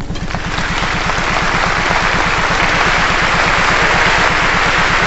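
Large concert audience applauding, a dense even clapping that swells a little in the first second or two as the orchestra's last chord dies away.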